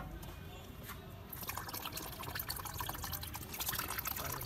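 Coconut water pouring from an opened green coconut into a plastic cup, splashing and trickling. The pour starts about a second in.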